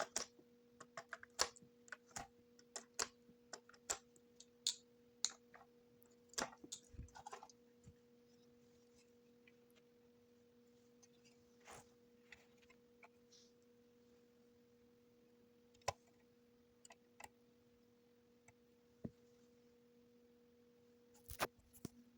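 Quick light clicks and taps for the first seven or eight seconds, then only a few scattered single clicks, over a faint steady electrical hum.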